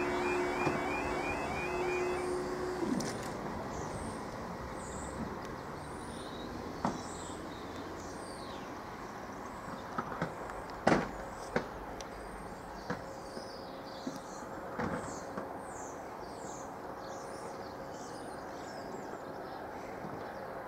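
Half-barrier level crossing alarm sounding as the barriers rise, cutting off about two to three seconds in. After that comes quiet outdoor background with small birds chirping and a few sharp clicks.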